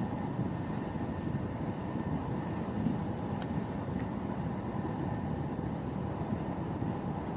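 Steady low rumble of an Intercités passenger coach running at speed, heard from inside the coach, with a couple of faint clicks around the middle.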